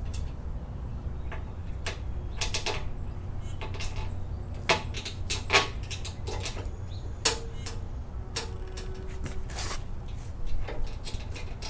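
Scattered clicks and knocks of an aftermarket impact strip being pressed against and snapped onto a Chevy Caprice bumper, with a few louder knocks in the middle, over a steady low rumble.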